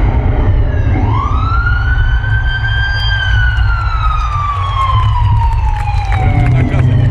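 A siren wail rising over about a second and then falling slowly, over a steady heavy bass, played through a stadium concert sound system. A second rise begins near the end.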